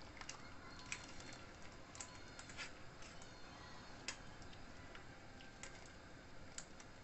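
Metal spoon clicking and scraping against a wire-mesh strainer as tamarind pulp is pressed through it into a pot of soup: faint, with a few scattered sharp clicks.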